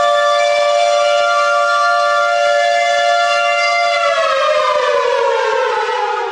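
Air raid siren wailing on two close tones sounding together, held steady, then winding down in pitch over the last two seconds.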